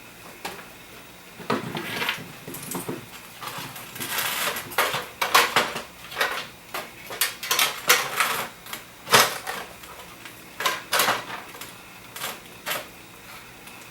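Irregular metallic clinks, taps and short scrapes of small screws being handled and fitted to fasten a computer power supply into its case.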